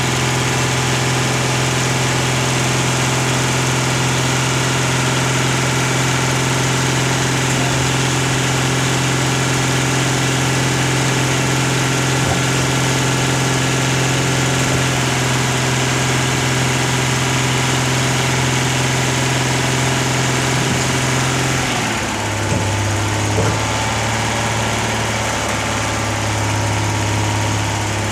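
Diesel engine of a hook-lift roll-off truck running steadily, driving the hydraulic hook arm as a loaded bin is drawn back and lowered onto the chassis. About 22 seconds in the engine note drops to a lower, idling pitch as the lift ends, with a couple of clunks from the bin settling.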